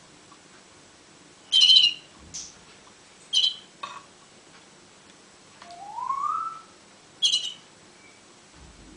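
Canary giving short, sharp calls, three loud ones spread over several seconds with a few fainter notes between them, and a softer rising tone near the middle.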